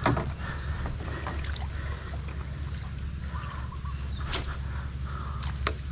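A small boat's engine idling with a steady low rumble, and a few sharp clicks as fishing tackle is handled, one right at the start and one near the end.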